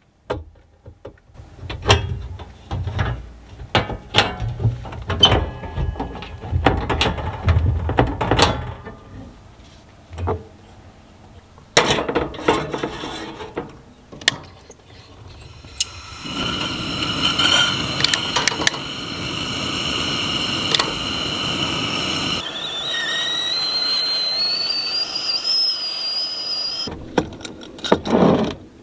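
Knocks and clatter of things being handled, then a stainless stovetop whistling kettle on a camp stove: a steady hiss as the water comes to the boil, then the whistle sounding, rising in pitch for several seconds before it stops, and a last clatter near the end.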